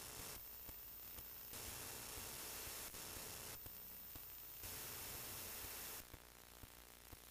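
Faint steady hiss of recording noise that cuts out abruptly and comes back several times, with a few faint clicks.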